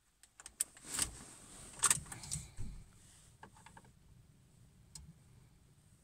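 Car keys jangling and clicking as the key goes into the ignition and is turned to the on position, with the engine not yet cranked. A faint steady hum follows.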